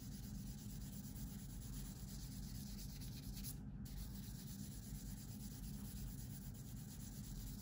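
Faint, steady rubbing of a 1000-grit sanding sponge stick being worked back and forth over a clear plastic model canopy, wet sanding with light pressure.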